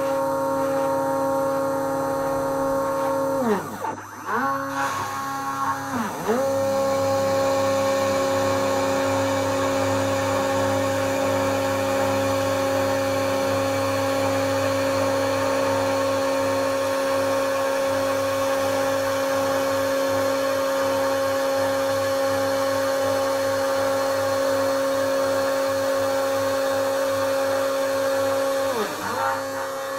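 Spindle motor of a home-built CNC router whining steadily as it mills a slot in MDF. Its pitch swoops down and back up twice a few seconds in, and once more near the end.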